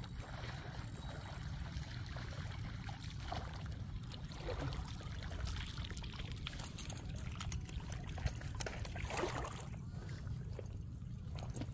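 Water splashing and trickling over a steady low rumble, with a few small knocks.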